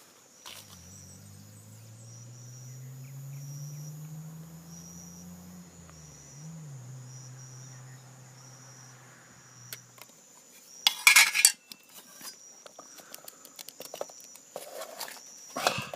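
Metal clattering and clinking of a canteen cup and its gear being handled: a loud burst of clanks about eleven seconds in, and another knock near the end. Before that, a low hum rises slowly and falls away for several seconds, under a regular high chirping of evening insects.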